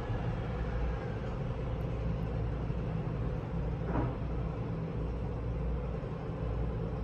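Steady low rumble of room background noise, with a faint click about four seconds in.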